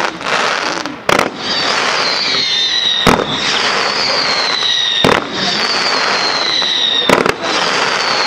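Aerial firework shells bursting in a professional display: a sharp bang about every two seconds, the last a quick double, over a continuous hiss and crackle. A high whistle slides slowly down in pitch and starts again after each bang.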